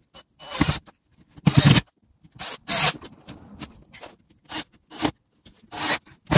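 Short, irregular bursts of scraping and rubbing on wood, about a dozen of them, as work goes on at the bottom rail of a pine stud frame.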